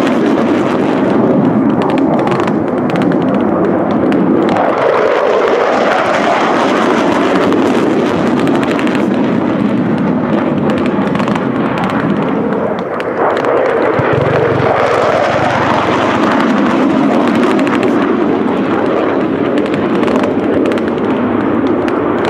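F-16 fighter jets flying past with afterburner lit: loud, continuous jet noise that swells and sweeps in pitch as they pass, around five seconds in and again around fourteen seconds in.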